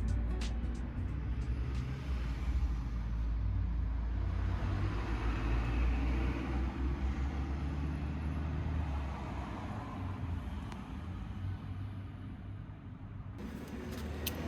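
Car running: a steady low rumble with road or engine noise that swells around the middle and fades toward the end.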